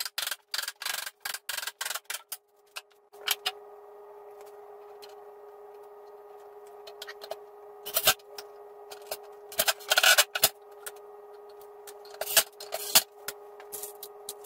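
A quick run of hammer blows on wood, several a second for about two seconds, knocking a glued or fastened piece loose from the cabinet frame. Then a cordless drill drives screws into plywood in short bursts.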